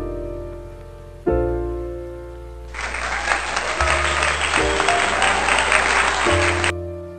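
Piano background music with sustained chords struck every second or two. About three seconds in, a canned applause sound effect plays over it for about four seconds and cuts off suddenly.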